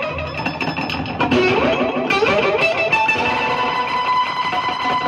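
Overdriven electric guitar played through a delay pedal: rapid picked notes repeated by the delay into a cascade of echoes, with fresh strikes about a second and two seconds in, then sustained notes ringing out.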